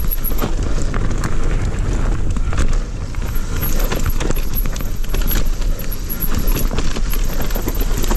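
Electric mountain bike clattering down a rough dirt trail: tyres rolling over roots and ruts, with frequent sharp knocks and rattles from the bike, over a steady low rumble.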